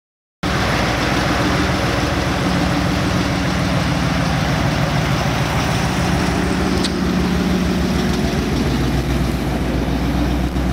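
Ford Mustang GT500E's V8 running steadily at low revs as the car rolls slowly past and away. The sound starts abruptly just under half a second in.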